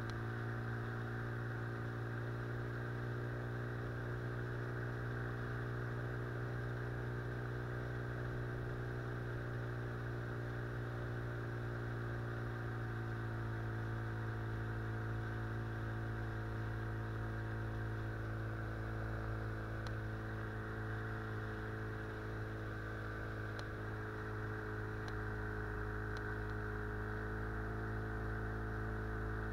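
Outboard motor running steadily at cruising speed, pushing an inflatable boat upriver; the engine is new and still being run in. Its note shifts slightly a little before halfway through.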